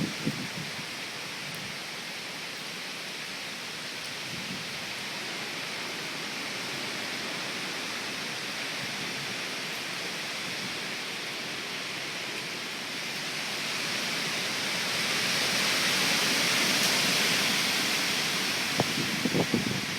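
Hurricane Irene's wind and rain making a steady hiss, which swells into a stronger gust about two-thirds of the way through and eases near the end. A few short low thumps come at the very start and again near the end.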